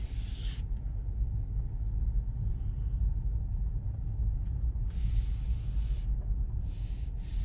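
Electric car (Tesla Model 3 Performance) driving: a steady low rumble of road and tyre noise with no engine sound, and short bursts of hiss at the start, about five seconds in and near the end.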